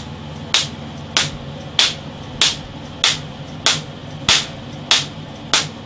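Repeated 400-joule capacitor discharges arcing across the windings of a wirewound power resistor: a sharp, really loud pop about every 0.6 seconds, ten in all, over a steady low hum.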